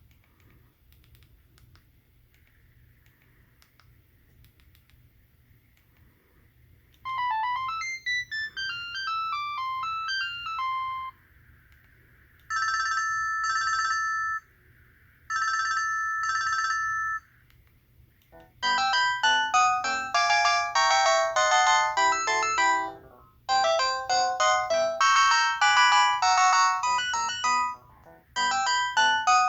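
Sangoma D10 IP DECT phone handset playing its ringtones in turn. After about seven seconds of near quiet with a few faint clicks comes a rippling run of beeps, then two trilled rings about two seconds each, then a fast, busy electronic melody with short breaks.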